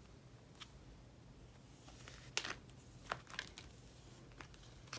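Faint plastic crinkling as sleeved photocards are handled and slid into the clear pocket pages of a collector's binder, with a few short, sharp rustles from about halfway on.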